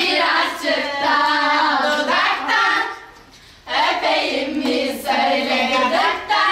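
Unaccompanied singing, in two sung phrases with a short break about three seconds in.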